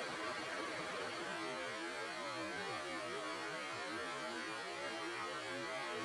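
Steady hum of a car's climate-control blower running at full inside the cabin.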